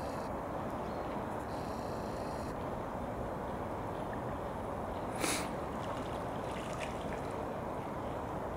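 Shallow stream running steadily over a riffle, with one brief sharp sound about five seconds in.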